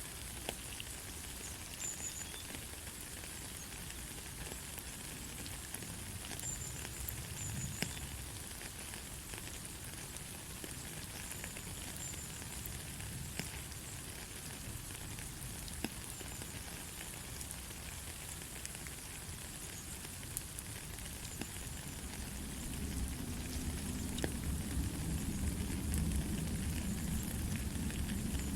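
Steady light rain: an even hiss of rainfall with many scattered sharp drop ticks. A low rumble swells in about three-quarters of the way through.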